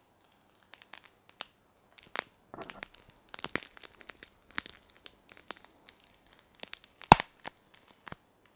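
A long green pepper being snapped and twisted apart by hand close to the microphone: a run of sharp, crisp cracks with some crinkling, the loudest crack about seven seconds in. It is a foley imitation of a bone breaking.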